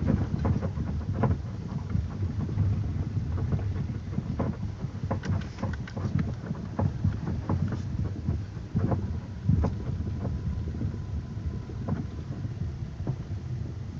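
Lada Vesta driving on a smoother stretch, heard inside the car: a steady low road and tyre rumble with irregular light knocks and clicks from the body and suspension.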